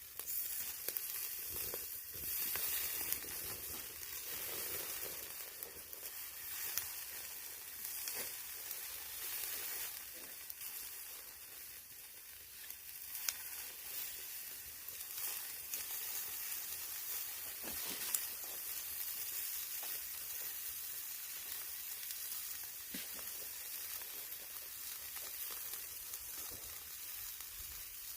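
Pork belly slices sizzling on a grill over charcoal, a steady hiss of rendering fat with occasional sharp pops.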